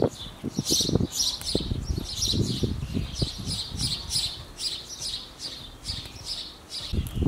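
Small birds chirping in quick repeated notes, several a second, over low rustling as curly parsley sprigs are picked by hand.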